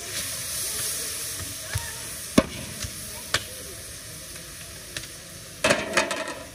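Rice poured from a metal bowl into a large cauldron of hot oily broth, hissing and sizzling as it goes in, then settling to a lower steady sizzle. A few sharp knocks follow, and there is a brief loud clatter near the end.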